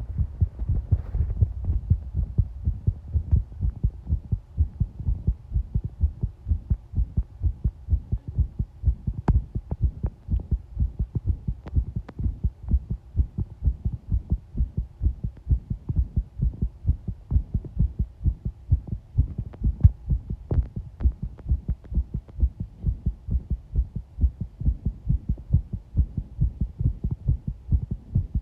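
Human heartbeat heard up close through a microphone pressed against the body: a steady, regular run of low beats over a constant low hum.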